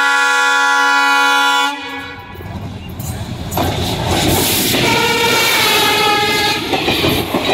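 WDG3A diesel locomotive sounding a loud horn of several tones for nearly two seconds, then sounding it again for about three seconds as it rushes past at speed. Under the horn, the rumble of engine and wheels grows, and ends in the clatter of passenger coaches running over the rails.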